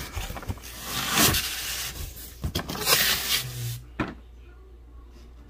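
Cardboard boxes being handled and shifted: rubbing and scraping, with a few knocks, settling to quiet for the last second and a half.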